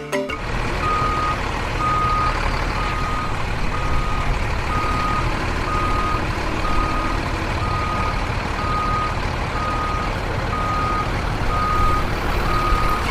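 A single-pitched electronic beep repeating about once a second, like a vehicle's reversing alarm, over a steady low rumble and hiss.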